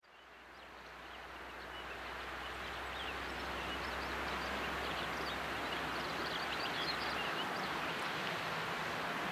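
Steady rush of water from a geyser's overflow runoff spilling down its channel into a river. It fades in over the first few seconds, with scattered faint high ticks over the rush.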